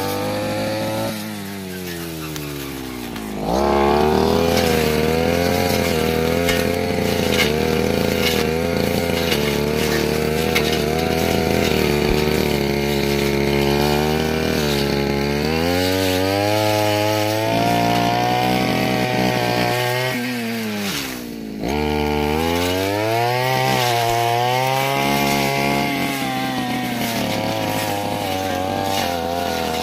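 Stihl brush cutter engine running at high revs, its pitch wavering as the blade works through brush. The revs fall away about a second in and climb back up, and drop again briefly just past twenty seconds before rising once more.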